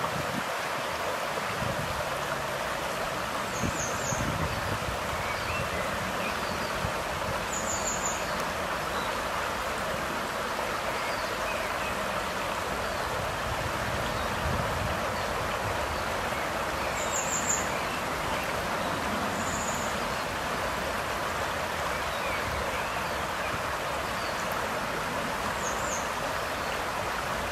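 River water running over rocks, a steady rush. Short, high bird chirps come through a few times, the clearest about eight seconds in and just after halfway.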